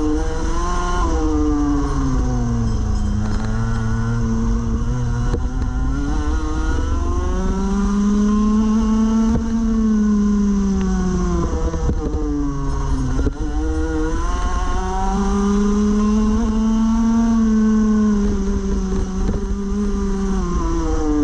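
Rotax Max Evo 125cc two-stroke kart engine at race speed. Its pitch climbs steadily along the straights and drops sharply three times as the kart slows for corners: near the start, about two-thirds of the way through, and at the very end. A steady low rumble runs underneath.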